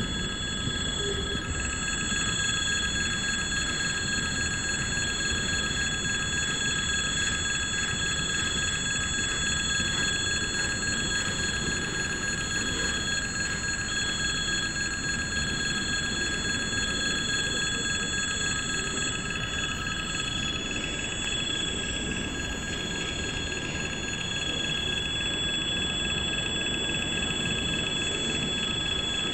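Railway level-crossing warning bell ringing continuously while the wagons of a freight train roll past with a steady rumble.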